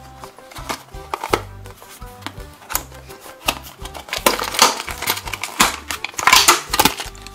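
Background music with a repeating bass pattern, over sharp crackling and snapping of a plastic blister pack being pulled off its cardboard backing. The packaging noise is loudest in the second half.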